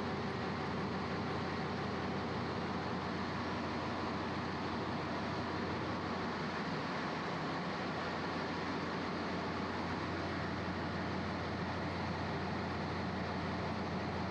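Steady machinery drone of a ship's engine room, an even rushing noise with a constant low hum underneath.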